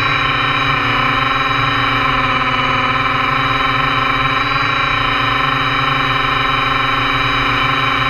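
Quadcopter drone's electric motors and propellers whining steadily, heard from the camera on board as a dense, unchanging stack of tones.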